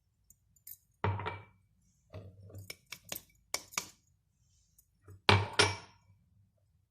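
Kitchenware clinking and knocking: a glass measuring cup and a utensil striking a mixing bowl in a series of sharp clinks, the loudest about five seconds in, as flour is added for a dough.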